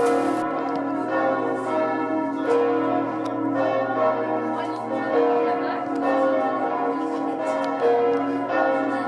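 Several church bells pealing together, with strikes following each other every half second or so over a steady, overlapping ring.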